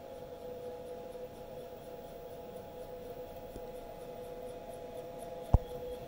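Energized Bulkman3D 23HD86001Y-21B NEMA 23 stepper motor on a CNC humming with a steady tone of several pitches, with a faint rhythmic clicking that keeps repeating; the owner has ruled out the drivers and motors and suspects the Mach3 configuration or a faulty controller. One sharp knock near the end.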